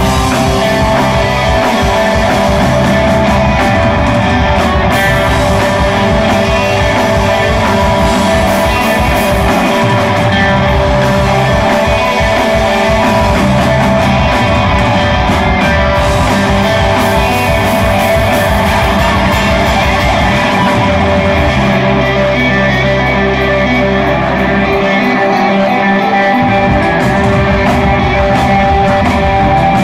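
Live rock band playing: two electric guitars, bass guitar and a drum kit.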